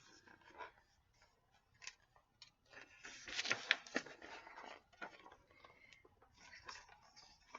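Faint rustling and soft clicks of a paper book being handled as its pages are turned, busiest about three to four and a half seconds in.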